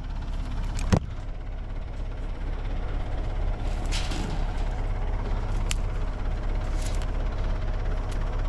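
Backhoe engine running steadily at idle, with a sharp metallic knock about a second in and a few lighter clicks later.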